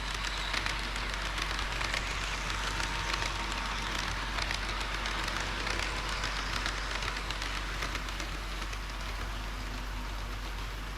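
A model diesel railcar running on layout track: a rattling rolling noise full of rapid small clicks, heaviest in the first two-thirds and easing off near the end.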